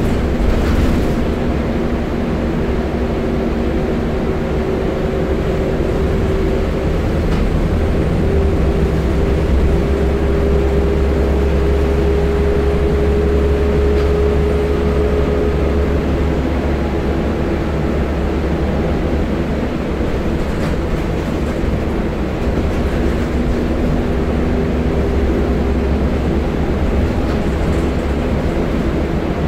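Scania L94UB bus heard from inside the passenger saloon: the rear-mounted diesel engine runs steadily under a heavy rumble of road and body noise. The engine note rises slowly for several seconds near the middle, then drops back.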